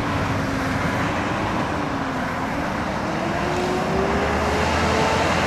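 Highway traffic noise: a steady rush of passing vehicles, with one engine's hum dipping and then rising slowly in pitch from about two seconds in.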